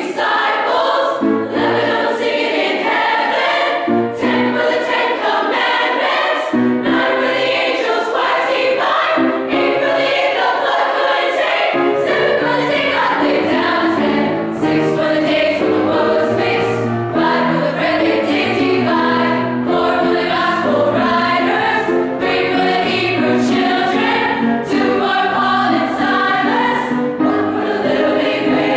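A girls' choir singing in harmony, several voice parts holding notes together and moving from note to note.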